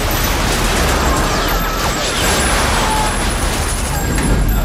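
Sustained automatic gunfire from many guns at once, a loud, dense, unbroken barrage.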